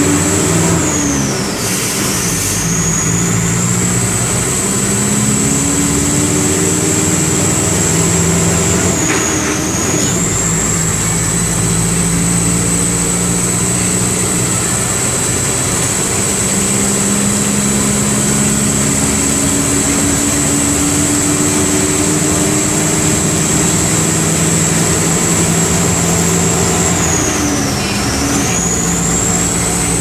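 Mercedes-Benz OM 904 LA four-cylinder turbo diesel of an OF-1418 bus pulling away and accelerating through the gears. The engine note climbs slowly and falls back at gear changes about two seconds in, about nine seconds in and near the end, with a high whine that dips at each shift.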